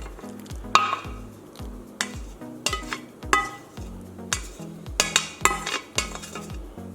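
Metal kitchenware and utensils clinking in a string of sharp knocks over background music with a steady beat.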